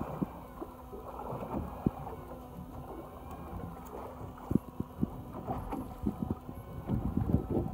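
Choppy sea water sloshing against a fishing boat's hull, with wind on the microphone, a steady low hum, and scattered hard knocks, several of them close together near the end.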